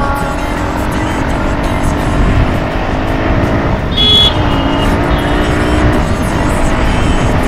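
Motorcycle engine running as the bike is ridden, with wind and road noise. A short high-pitched tone sounds about four seconds in.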